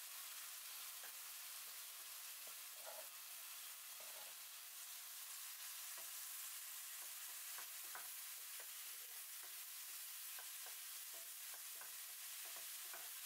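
Diced tomatoes and minced garlic frying in a pan with a faint steady sizzle, while a wooden spatula stirs them with many light, irregular scrapes and taps against the pan, busier in the second half.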